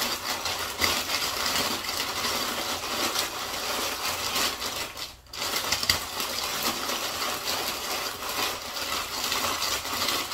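A bag of Doritos tortilla chips crackling and crinkling as the chips are crushed inside it by hand, with a short break about five seconds in.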